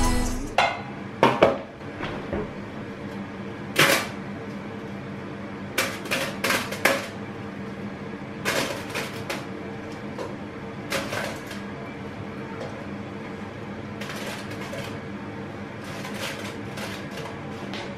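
Raw yam fry strips being dropped by hand into a nonstick air fryer basket: irregular clusters of light taps and clicks over a faint steady hum.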